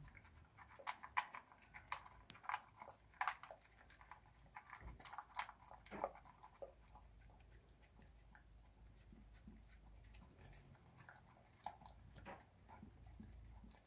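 Dog chewing dry kibble from a bowl, with irregular crunches. The crunches come thick and fast for the first six seconds or so, then thin out to a few now and then.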